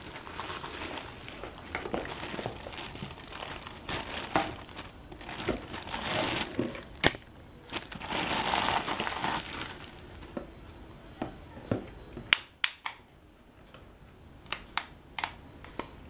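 Clear plastic bag crinkling and rustling as a hair dryer is pulled out of it and out of its cardboard box. In the last few seconds the rustling stops and there are several sharp clicks and taps of plastic being handled.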